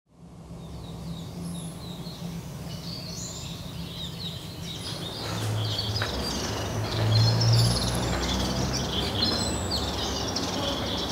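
Birds chirping and twittering over a steady low hum of background noise, which grows louder about five seconds in.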